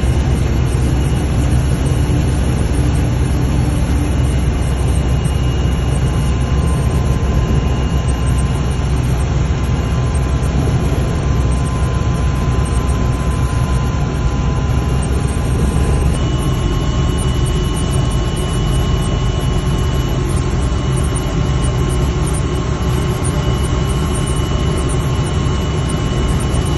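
Helicopter turbine and rotor noise from inside the cabin with the door open: a loud, steady drone with a high turbine whine, which shifts slightly in pitch about sixteen seconds in.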